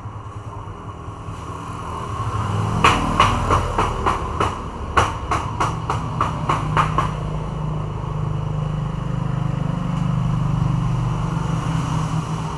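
A run of about a dozen sharp taps or clicks, roughly three a second, over a steady low hum.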